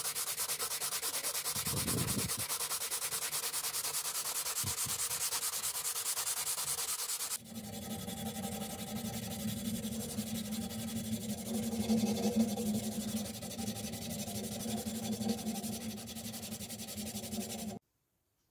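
Steel being hand-sanded with abrasives, in two takes. First comes a steady, finely rhythmic sanding of the fly press's steel frame. After an abrupt change, a bent steel bar clamped in a vise is polished shoe-shine style with a strip of abrasive cloth, an uneven rasping that stops suddenly near the end.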